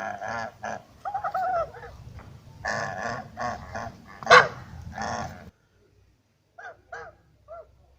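Domestic geese and ducks calling in a dense run of overlapping calls that stops abruptly about five and a half seconds in, followed by a few short, quieter calls near the end.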